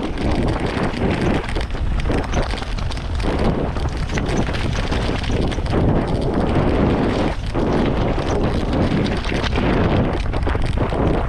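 Wind noise on a helmet camera's microphone during a fast mountain-bike descent, over a steady crunch and clatter of tyres and bike on loose rocky gravel.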